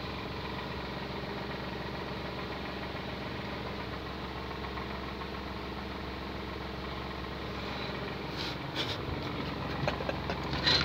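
Steady machine hum, an engine or electric motor running at a constant speed. A few short clicks and knocks come in near the end.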